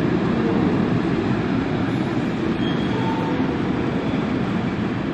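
Container freight train rolling past, with the steady running noise of its wagons' wheels on the rails.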